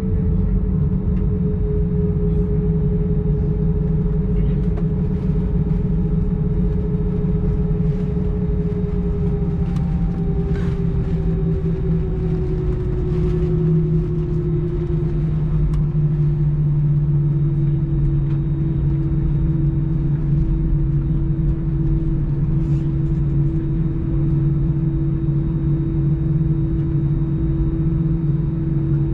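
Airbus A320-214's CFM56 jet engines running at taxi power, heard from inside the cabin: a steady deep rumble with a hum whose pitch sinks slightly about halfway through.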